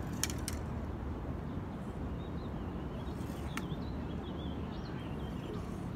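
A steady low rumble of distant city traffic, with a songbird warbling from about two seconds in. A few sharp clicks from the fishing rod and reel being handled, the loudest just after the start and one more in the middle.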